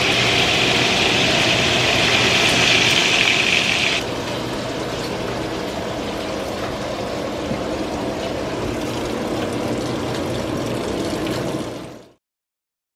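Bacon sizzling in a frying pan on a gas stove, a steady hiss. About four seconds in it cuts abruptly to a quieter, duller steady noise, which stops suddenly near the end.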